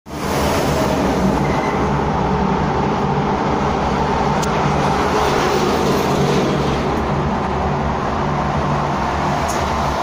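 Steady hum and rumble of running machinery, with a low, even drone under a broad noise that does not change.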